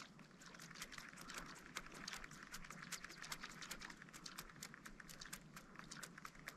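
Faint, rapid, irregular clicking, several clicks a second, over a quiet background hiss.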